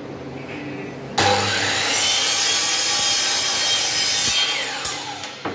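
Compound miter saw starting suddenly and crosscutting a wooden strip for about three seconds, then the blade spinning down with a falling whine after the trigger is released.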